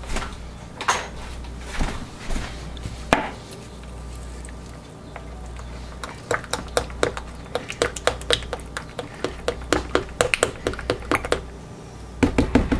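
A utensil knocking and clicking against a plastic cup or pitcher while soap batter or colour is mixed: a few scattered knocks, then a run of quick taps, about three or four a second, for several seconds, and a short cluster near the end, over a steady low hum.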